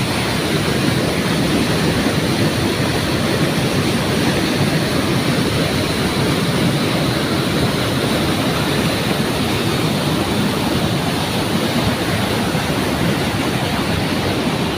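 Waterfall water rushing steadily and evenly.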